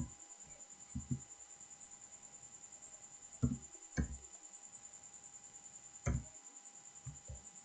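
Computer keyboard keystrokes as a GSTIN is typed slowly: about eight soft, dull taps, some in quick pairs, with pauses of a second or two between them. A faint steady electrical whine sits underneath.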